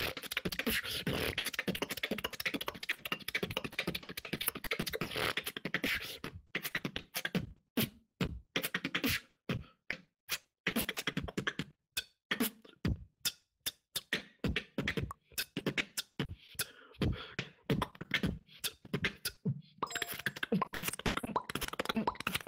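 Beatboxing in a battle round: a dense run of rapid vocal percussion for about the first six seconds, then separate sharp kick and snare hits with short silent gaps between them, and a dense run again near the end. Heard over an online voice chat.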